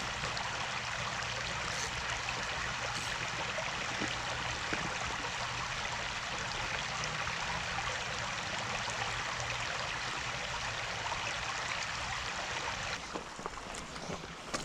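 Small creek running over rocks: a steady rush of water that falls off noticeably about a second and a half before the end.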